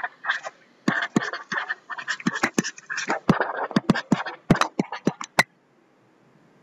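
Pen stylus writing on a tablet screen: a quick run of scratchy strokes and sharp taps as words are written by hand, stopping about five and a half seconds in.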